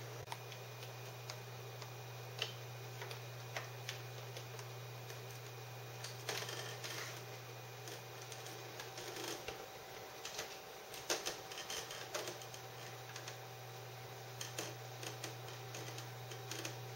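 Irregular clicks and taps of a cat's paws and claws on a laptop's keys and plastic casing as it shifts and climbs over the computer, busiest in the second half, over a steady low hum.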